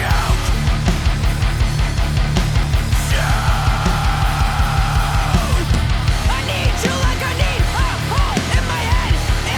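Loud rock song with a fast, steady beat and electric guitar. A long held melody line runs through the middle, followed by short bending notes.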